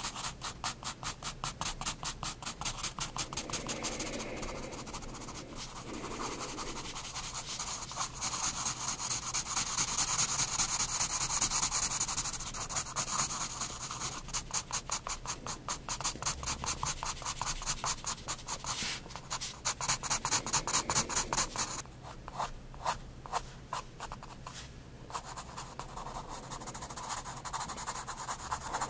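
9B graphite pencil scratching across sketchbook paper in quick back-and-forth shading strokes, with stretches of smoother, continuous rubbing.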